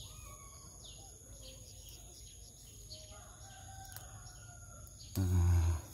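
Birds chirping, with a rooster crowing in the distance. About five seconds in, a man makes one short, low vocal sound, like a grunt, while straining to reach the flowers.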